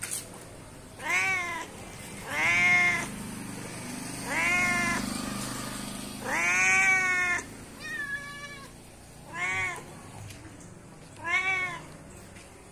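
A domestic cat meowing repeatedly: about seven calls a second or two apart, each rising then falling in pitch, with one longer drawn-out meow about two-thirds of the way through.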